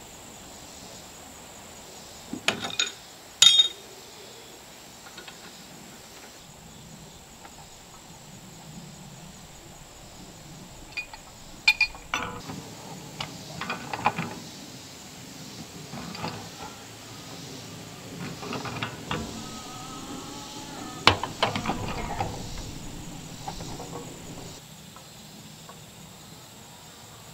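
A wrench clinking and clanking against black steel gas pipe and fittings as the joints are tightened by hand, in scattered bursts of sharp metallic clicks, the loudest a few seconds in and about two-thirds of the way through.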